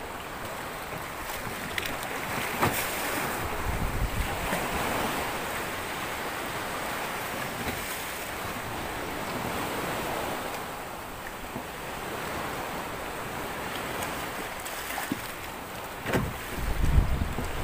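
Choppy sea water splashing and washing against a small boat's hull, steady throughout. Wind buffets the microphone in low gusts, heaviest about four seconds in and near the end.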